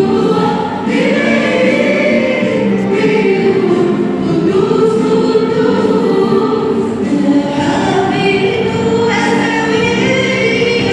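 Church choir of mostly women's voices singing a hymn together through handheld microphones, in sustained, continuous phrases.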